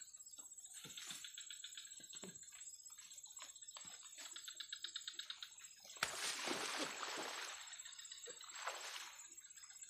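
Insects calling by flooded water: a steady high whine with rapid clicking trills. About six seconds in comes a burst of splashing, the loudest sound, and a shorter one near the end.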